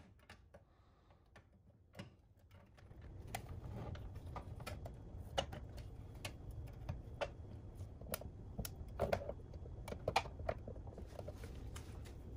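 Scattered light clicks and knocks of a pressed-steel Tonka toy dump truck being handled, its dump bed tipped up and down, over a low steady hum that comes in about three seconds in.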